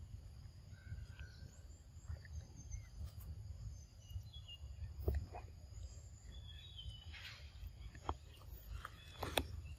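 Forest ambience: birds chirping over a low rumble, with a few sharp clicks about halfway through and near the end.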